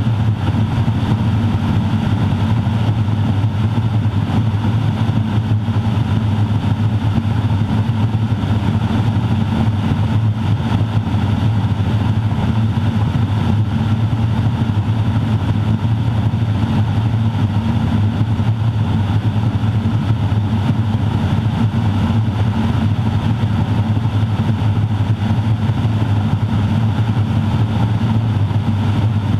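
Garrett TPE331-6 turboprop of a Grumman Ag Cat crop duster running at steady power in flight, heard from inside the cockpit. It is a loud, unchanging drone dominated by a deep hum, the uncomfortable resonance this airplane produces.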